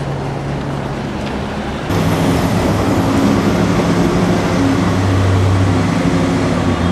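Large vehicle engine running steadily close by, a low hum that becomes louder about two seconds in, over street traffic noise.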